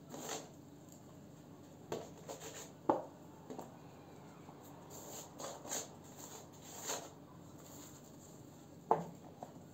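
Hands salting and handling striped-peeled eggplants: soft, scattered rubbing and tapping sounds, with a sharper tap about three seconds in.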